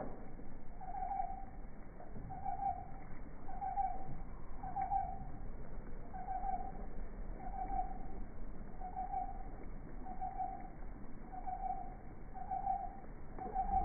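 A steady series of short hoots, all on the same pitch, repeating about once a second. It is the strange sound picked up during an electrical storm that had almost no thunder.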